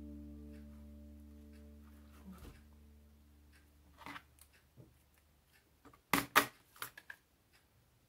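Acoustic guitar background music fades out, then a few sharp clicks come from a pair of scissors being handled over a cutting mat. The loudest is a quick pair of clicks about six seconds in.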